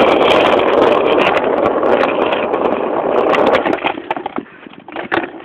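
Skateboard wheels rolling over rough asphalt: a loud, steady rumble with scattered clicks that dies away about four seconds in as the board slows and stops, followed by a few separate knocks.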